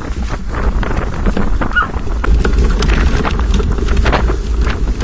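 Wind buffeting the microphone in a steady low rumble, with irregular knocks and rattles from a pet stroller's frame and wheels as it is pushed over bumpy field.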